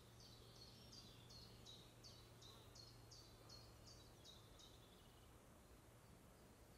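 Faint woodland ambience with a bird calling a quick run of about a dozen short, high, repeated chirps, about three a second, that stops a little before five seconds in. A low steady hum lies underneath.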